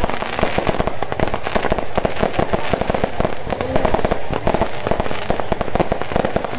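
Fireworks and firecrackers going off in a dense, continuous barrage of rapid bangs and crackles.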